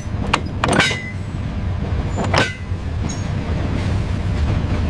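A steady low rumble with a few sharp metallic clinks or knocks, each ringing briefly: one just under a second in and another about two and a half seconds in.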